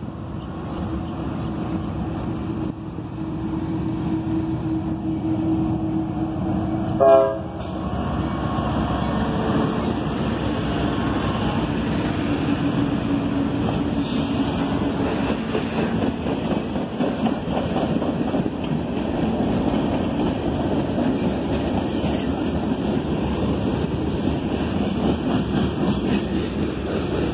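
A CSX freight train approaches with its diesel locomotives running, and sounds a very short horn blast about seven seconds in. The locomotives then pass close by, followed by freight cars rolling past with steady wheel and rail noise.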